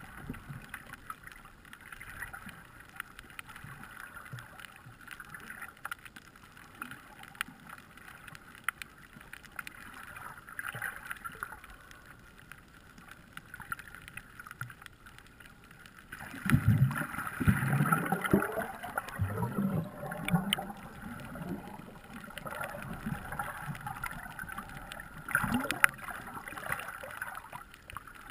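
Underwater water noise heard through an action camera's waterproof housing: a faint steady hiss with scattered small crackles, then from about halfway through louder, lower sloshing and rushing surges of water moving past the camera.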